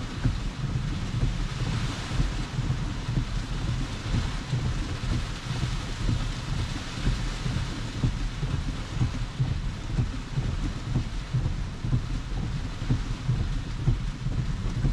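Heavy rain pattering on a car's windshield and roof, heard from inside the cabin as a steady hiss over a constant low, fluttering rumble.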